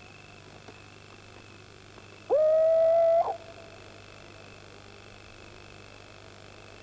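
An owl hooting once, about two seconds in: a single call about a second long, held at a steady pitch.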